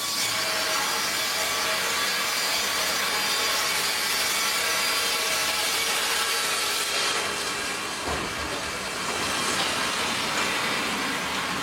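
MEBOR HTZ 1200 PLUS horizontal bandsaw cutting through a softwood log: a steady sawing noise that starts suddenly.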